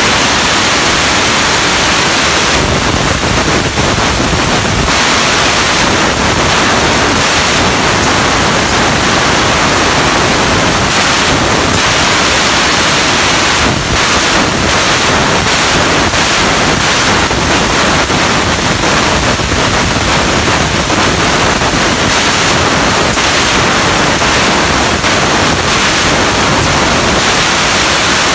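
Fiber laser tube-cutting machine running as it cuts and turns square steel tubing: a loud, steady rushing hiss with no clear tone.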